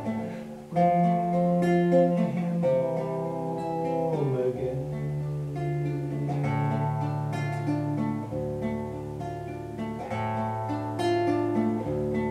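Nylon-string classical guitar playing an instrumental passage of plucked chords, the chord changing every couple of seconds.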